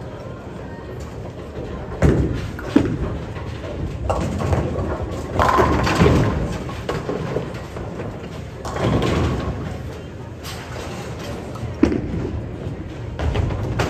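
Bowling alley din: balls hitting the lanes and pins crashing, heard as a run of thuds and crashes. The sharpest come about two seconds in and again near twelve seconds, over background chatter.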